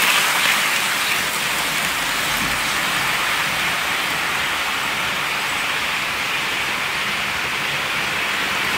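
Steady rushing hiss of an OO gauge model train running on its track, a little louder in the first second as the locomotive and tank wagons pass close, then even.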